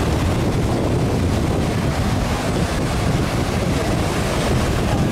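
Rough sea surf breaking close by, with strong wind buffeting the microphone: a steady, loud rush of water and wind noise.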